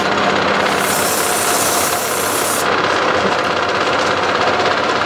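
Wood lathe running steadily, spinning an off-center workpiece on an offset chuck. About a second in, sandpaper hisses against the spinning wood for under two seconds.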